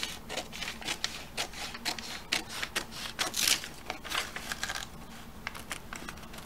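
Scissors snipping through stiff manila pattern paper in a quick run of short cuts along a curved line; the snips come more sparsely in the last two seconds.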